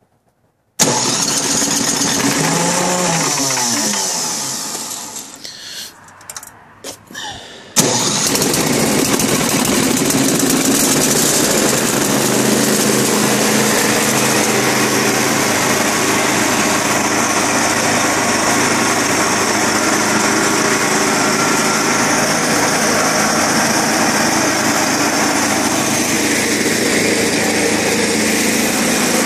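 Toro Power Shift 1028 snowblower engine starting. It fires about a second in and runs a few seconds, then falters and sputters down. About eight seconds in it catches again and settles into a steady run.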